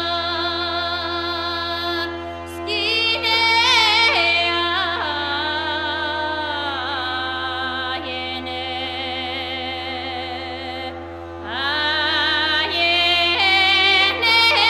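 Background music: a singing voice in wavering, ornamented lines over a steady held drone tone. The voice breaks off briefly twice.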